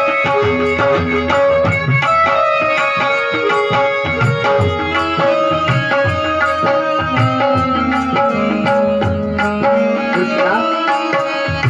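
Devotional music accompaniment: tabla-style hand drumming in a steady rhythm under long held melodic notes, with no voice.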